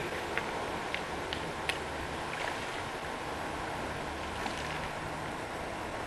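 Steady rush of river water along a gravel bank, with a few light clicks in the first two seconds.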